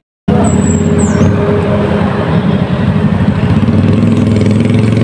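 Motorcycle engine idling steadily close by. It cuts in abruptly after a moment of silence, with a brief high chirp about a second in.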